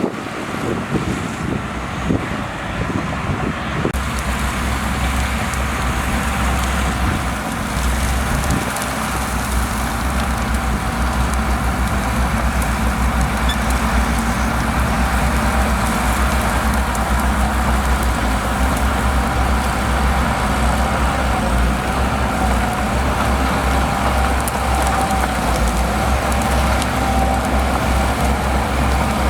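Shantui DH17C2 bulldozer's diesel engine running steadily under a rough mechanical noise. About four seconds in the sound changes abruptly to a heavier, deeper low rumble that holds to the end.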